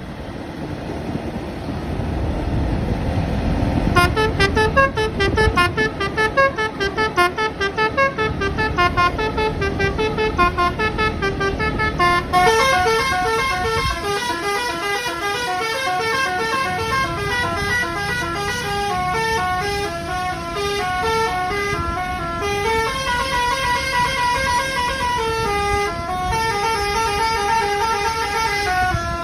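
Telolet bus horn playing a fast tune of short, stepped notes. It starts about four seconds in and grows fuller, with several tones sounding together from about twelve seconds on. Before the horn starts, a low rumble.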